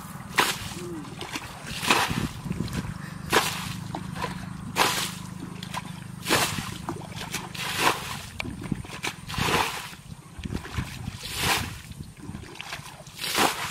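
Plastic bucket scooping and flinging muddy water out of a shallow ditch, about one splash every second and a half, over a steady low hum. The water is being bailed out to drain the ditch and catch the fish in it.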